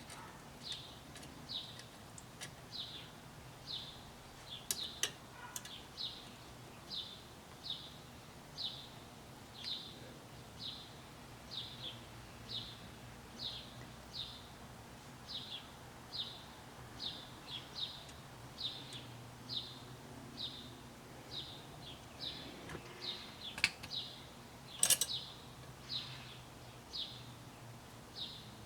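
A small animal chirps over and over in a steady rhythm, a short high chirp one or two times a second. A few sharp metallic clicks of small steering-column parts being handled stand out, loudest in a cluster near the end.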